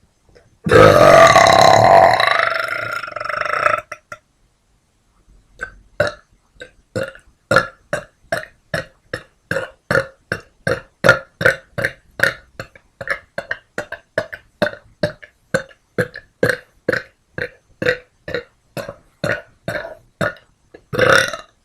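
A person burping: one long, loud burp, then a long string of short, quick burps at about three a second, and another loud burp near the end.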